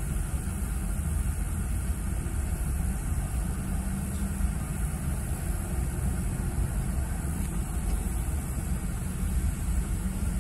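Steady low rumble of a car idling at a standstill, heard from inside the cabin.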